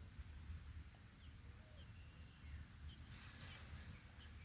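Faint outdoor ambience: scattered short, high bird chirps over a low rumble, with a brief burst of noise about three seconds in.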